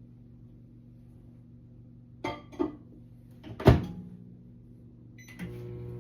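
Microwave oven being loaded and started: two light knocks, then the door shut with a loud clunk. Near the end a short keypad beep, and the microwave starts running with a steady hum.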